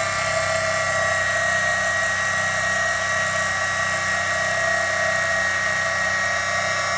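Mini lathe's small electric motor and spindle running at a steady speed with a constant whine, while the cutting tool is fed along a spinning softwood dowel.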